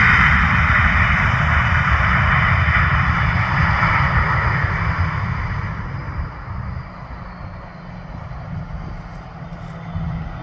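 Boeing 737-800's CFM56 jet engines heard as a loud rushing jet noise that fades away over the first six or seven seconds, leaving a quieter low rumble.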